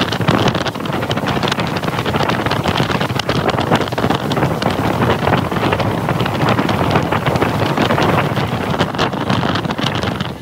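Wind buffeting the microphone on a motorboat running at speed, over the boat's engine and rushing water, with constant rapid gusts.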